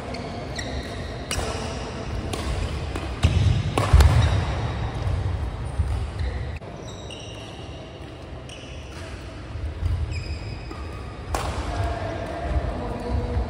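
Badminton singles rally: sharp racket strikes on the shuttlecock, short high squeaks of court shoes on the synthetic floor, and heavy footfalls, the loudest thud about four seconds in.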